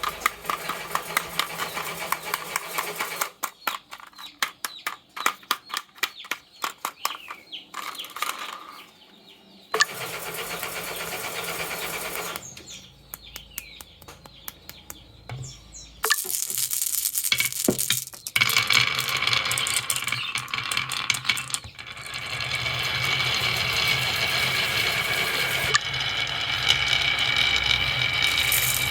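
Marbles clattering down wooden slope tracks in quick runs of clicks. About halfway through a small toy motor starts whirring, with a steady rattle over it.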